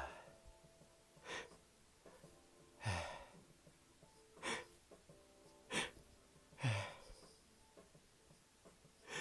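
A person gasping and sniffing between sneezes: six short, sharp breaths, each a second or so apart.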